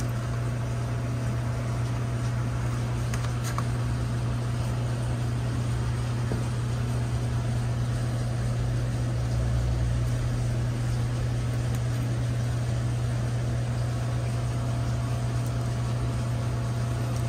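Steady low machine hum with an even rushing noise over it, unchanging throughout; a couple of faint clicks about three seconds in.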